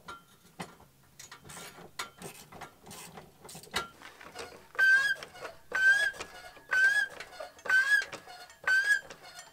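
Hydraulic floor jack being pumped with its long handle to raise a Jeep Wrangler TJ. Light clicks and rattles come first, then five strokes about a second apart, each with a short squeak.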